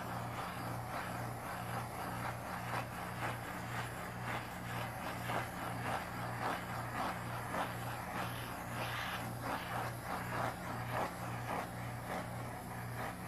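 Butane micro torch hissing as it is passed over fresh epoxy to pop bubbles, over a low hum that pulses on and off regularly.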